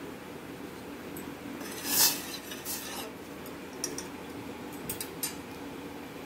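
Steel spoon stirring milk tea in a stainless-steel saucepan: a swishing scrape about two seconds in, then a few light clinks of the spoon against the pan, over a steady low hum.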